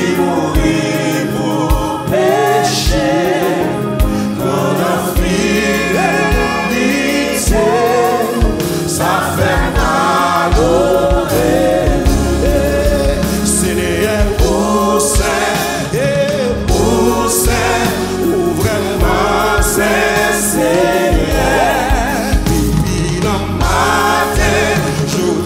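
Live gospel worship song sung in Haitian Creole by a male lead singer with a choir, backed by keyboards.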